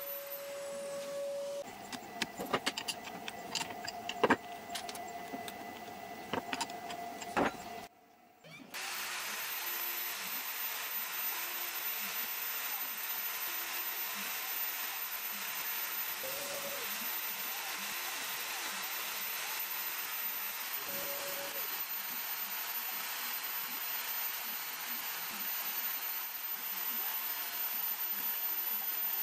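CNC router's AMB spindle running while a fine end mill carves through epoxy-filled wood, a steady machine noise with a faint whine. In the first several seconds, before a brief drop to quiet about eight seconds in, a different steady tone carries a scatter of sharp clicks.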